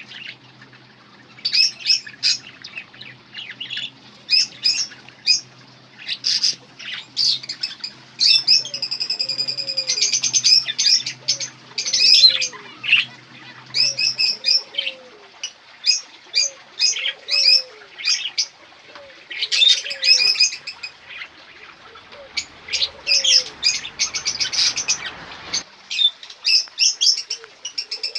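Small birds chirping over and over in short, loud high bursts, with a trill a little before halfway. Low, repeated curved calls join in from about halfway, while a faint low hum stops.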